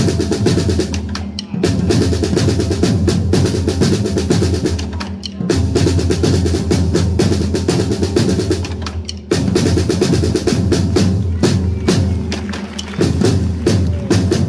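Drums playing a fast rolling rhythm in repeated phrases, with a short break about every four seconds, accompanying a flag-throwing display.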